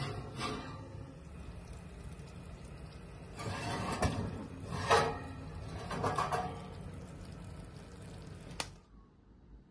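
A ceramic baking dish scraping and clinking against an oven's wire rack as it is slid in and lifted out, several times with the loudest about five seconds in, over a steady hiss and hum that cuts off suddenly near the end.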